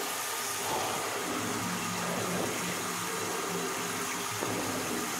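Tap running steadily into a ceramic wash basin, the water draining through a newly fitted PVC bottle trap as a flow test of the drain.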